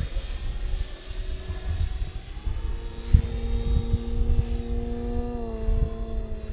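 Electric brushless motor and propeller of a large FMS Extra 330 RC aerobatic plane on 12S power, a whine that climbs in pitch about two and a half seconds in, holds, then drops back a little past the five-second mark as the throttle changes. Low gusty rumble and a few thumps of wind on the microphone lie underneath.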